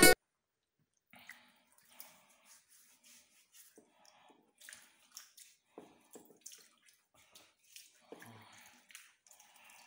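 Faint splashing and dripping of water at a bathroom sink, with scattered small clicks and knocks; very quiet overall.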